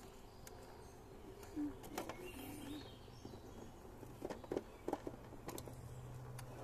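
Radio-controlled scale rock crawler on JConcepts Megalithic tires, crawling over rock: a faint low hum from its motor and drivetrain, getting stronger near the end, with scattered clicks and knocks of tires and chassis on stone, loudest about two-thirds of the way in.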